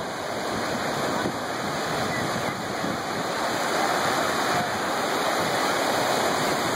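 Ocean surf: small waves breaking and washing in through shallow water, a steady rush of noise.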